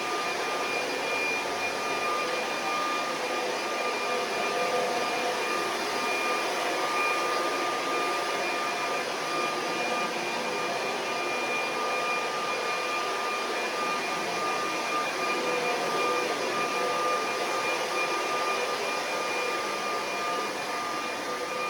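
Vacuum cleaner motor running steadily, a constant whine over its airflow noise.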